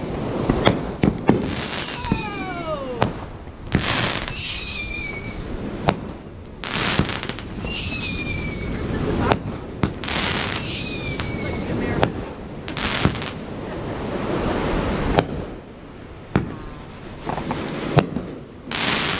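Aerial fireworks display: a rapid, irregular series of sharp bangs from shells bursting, with stretches of crackling and several high whistles falling in pitch.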